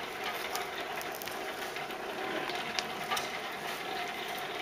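Hand-cranked forge blower running steadily, its gears and fan whirring as it blows air into a charcoal-and-coal fire, with scattered sharp crackles through it.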